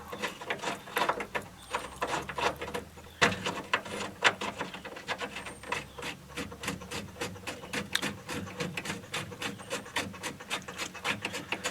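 Hand work on the radiator's mounting: scattered short clicks and scrapes of metal and rubber parts, settling in the second half into an even, rapid clicking of about three to four a second.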